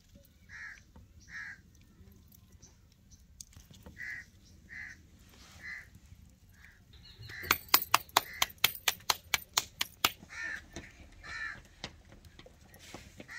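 A crow cawing repeatedly, single short caws spaced about half a second to a second apart. About halfway through, a quick run of sharp taps, about eight a second for nearly three seconds, is the loudest sound.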